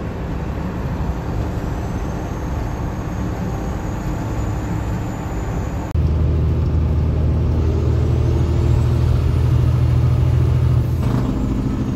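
Semi truck's Detroit Diesel Series 60 12.7-litre engine running at highway speed, heard inside the cab along with road noise. About halfway through it becomes louder, with a steady low drone. Its note changes shortly before the end.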